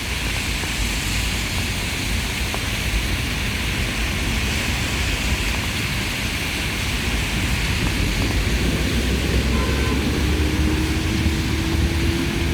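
Rainy city traffic ambience: a steady wash of vehicle noise and wet-road hiss over a deep rumble. A faint steady hum joins about ten seconds in, rising slightly in pitch toward the end.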